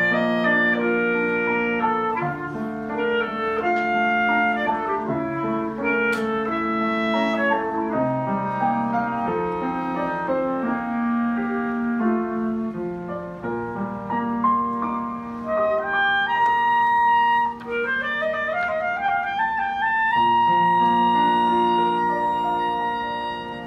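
Clarinet playing a melody over upright piano accompaniment. Near the end the clarinet climbs in a rising run to a long held high note that closes the piece, and the sound dies away.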